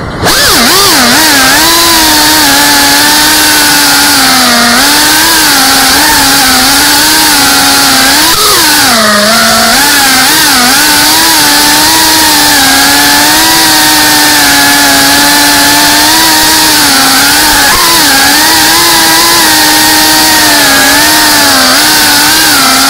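FPV racing quadcopter's brushless motors and propellers whining loudly, heard from the onboard camera. The pitch holds fairly steady but wavers with the throttle, rising and then dropping briefly about eight to nine seconds in.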